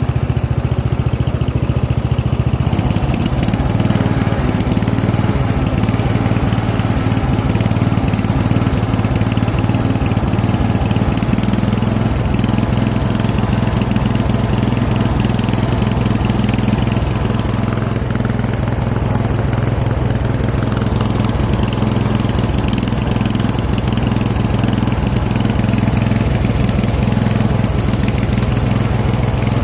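Riding lawn mower engine running steadily as the mower is driven along; its note shifts about two and a half seconds in, then holds.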